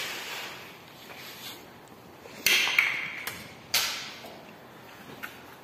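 Two sharp knocks with a short ring, about a second apart in the middle, with a few fainter ticks and clicks of things being handled.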